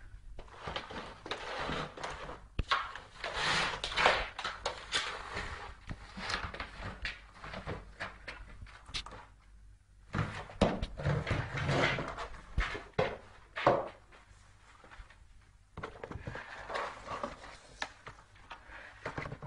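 A cat pawing at and pushing a cardboard box across a tiled floor: irregular knocks, thuds and scrapes of the box, with two short quieter pauses.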